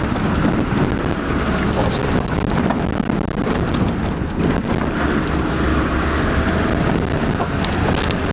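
Off-road 4x4 driving over a rough dirt track, heard from inside the vehicle: the engine runs steadily under a constant rumble, with scattered knocks and rattles from the bumps and wind buffeting the microphone.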